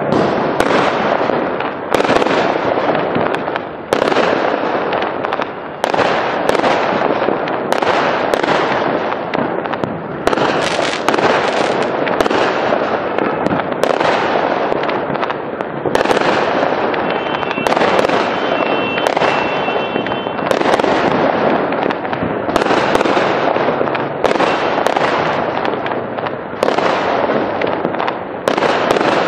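Fireworks going off in a dense, continuous barrage: sharp bangs about once a second, each trailing off into a fading tail that overlaps the next.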